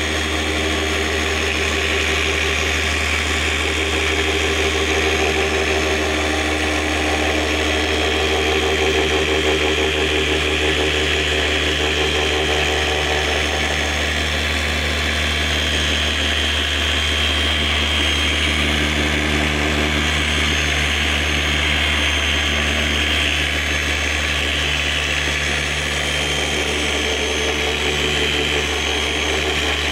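Electric polisher spinning a polishing pad steadily on a plastic headlight lens, working polishing compound in, with a low motor hum and a steady high whine. This is the polishing stage of a headlight restoration.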